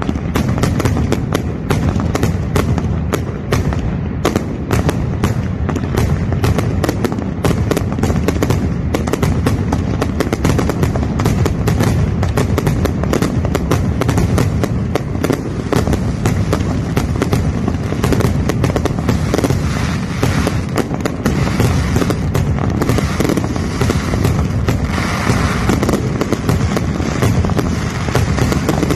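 Aerial fireworks going off in a dense, rapid barrage of shots and crackling bursts, many a second, with no break.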